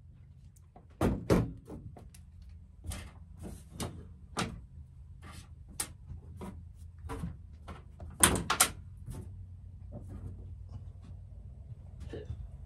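Hand tools and plastic RC car parts being picked up and set down as a worktable is cleared: irregular light clicks and knocks, with two louder knocks about a second in and another pair around eight seconds in, over a steady low hum.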